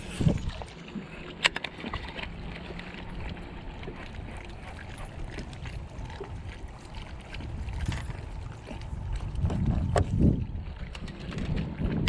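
Wind rumbling on the microphone out on an open boat, with water sounds and a few sharp clicks or knocks, one near the start, one about a second and a half in and one near ten seconds.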